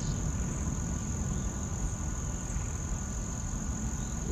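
Outdoor ambience: insects droning in one steady high-pitched tone, over a constant low rumble.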